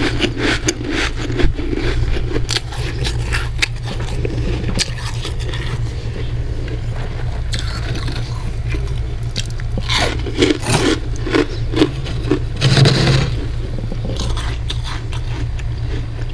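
A metal spoon scraping and digging through packed freezer frost in a run of crunchy strokes, thickest about two-thirds of the way in. A steady low hum runs underneath.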